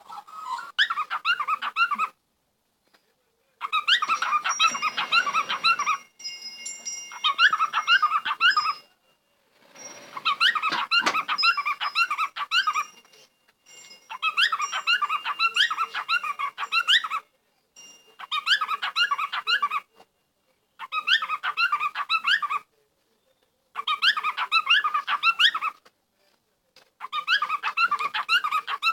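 Rapid, high squeaking or chirping calls from an animal, in bursts of two to three seconds that cut off suddenly into brief silences.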